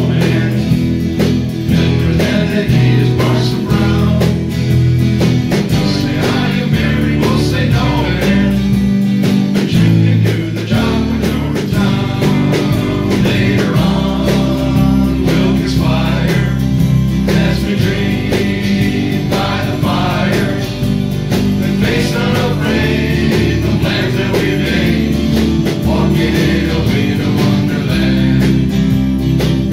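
Live band playing a song: guitar and singing over a steady beat and sustained bass notes.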